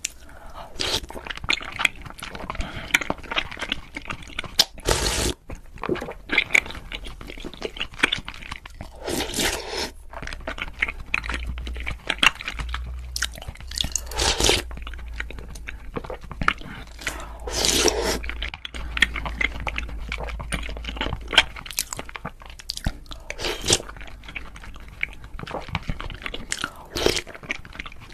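Close-miked chewing and wet mouth sounds of eating chewy tapioca pearls with milk and cream foam from a spoon, with several louder bursts spread through.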